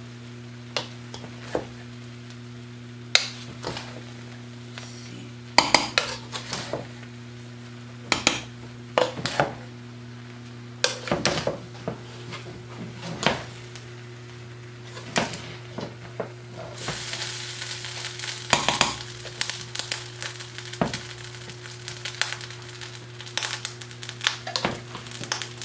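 Large spoon stirring rice and shrimp in a metal pot: irregular scrapes and knocks against the pot. From about two-thirds of the way in, a sizzle from the hot pot joins them.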